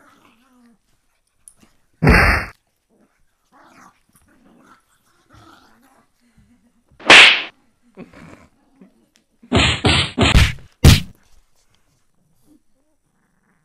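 Pug and corgi puppies barking while they play-fight. Short, sharp barks come about two seconds in and again about seven seconds in, then four in quick succession near the end.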